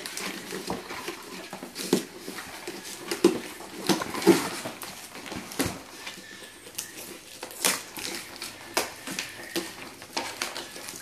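Cardboard packaging and paper being handled: irregular rustles, taps and scrapes as a box of craft cards and string is unpacked.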